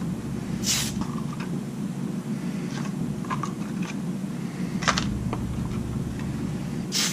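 Steady hum of a spray-booth fume extraction fan, with light clicks and taps as painted plastic parts are handled with pliers on a turntable. A few short hisses cut through it.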